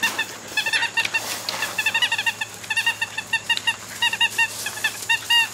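Dog's squeaky toy squeaking over and over as puppies bite and chew it. The short squeaks come in quick clusters of two or three, all at the same pitch.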